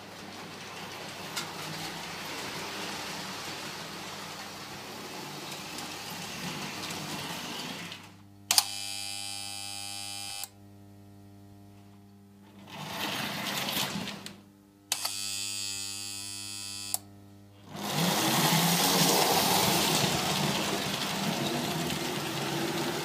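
Lionel O gauge toy trains running on the layout, a steady mechanical rattle over a low hum. Twice, about eight and fifteen seconds in, a model diesel locomotive's horn buzzes for about two seconds, starting and stopping sharply. From about eighteen seconds on the running gets louder as a train passes close.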